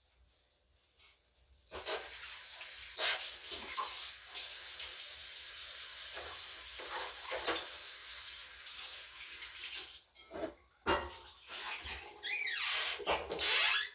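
Tap water running into a sink for several seconds, starting suddenly about two seconds in and stopping about ten seconds in, followed by a few knocks and clatters.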